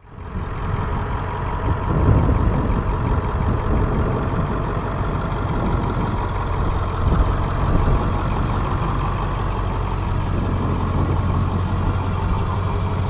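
Pickup truck engine idling steadily, an even low rumble with a hum, cutting in suddenly at the start.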